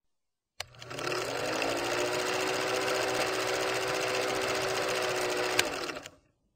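Film projector running: a fast, even mechanical clatter over a steady hum, starting with a click and ending with a sharp click before it winds down.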